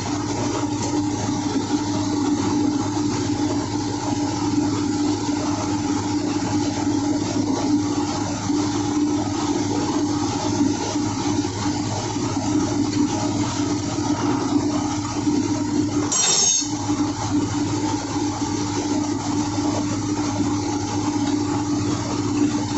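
Steady drone of running engine-room machinery with a constant low hum; the purifier itself is stopped. A brief sharp noise about sixteen seconds in.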